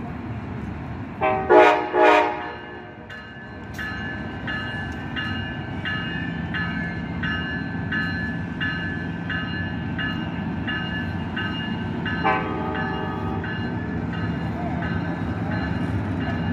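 Arriving Amtrak Capitol Corridor passenger train sounding its horn in two short, loud blasts about a second in, then its bell ringing steadily at about one and a half strikes a second, with a second, quieter horn sounding around twelve seconds in. A steady low hum runs under the bell.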